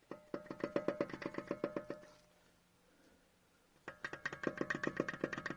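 Front drive shaft of an Opel Astra J rocked back and forth by hand, clacking rapidly with a ringing metallic tone in two bouts of about two seconds with a pause between. The clatter is the sign of play in the drive shaft, which the owner is trying to trace.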